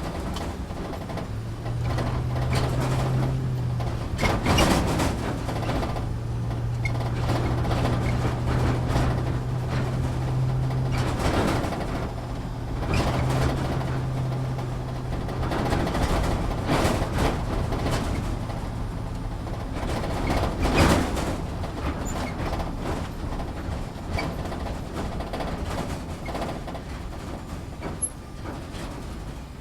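Off-road vehicle driving slowly over a bumpy dirt and rock trail, heard from inside the cabin: a steady low engine drone that shifts in pitch a few times, with several sharp knocks and rattles as the body jolts over rocks.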